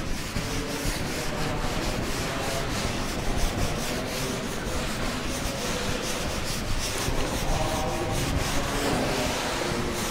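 Chalk scraping and scratching on a blackboard as words are written, with a steady background hiss.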